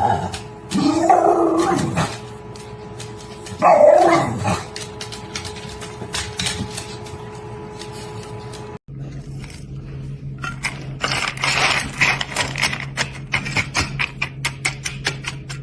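A dog gives two drawn-out vocal calls, each rising and then falling in pitch. After a cut, a run of quick clicks or taps follows, coming faster near the end.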